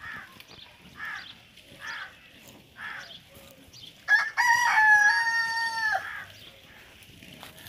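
A rooster crows once, a single pitched call of about two seconds that is the loudest sound here, starting about four seconds in. Before it come a few short clucking calls about a second apart.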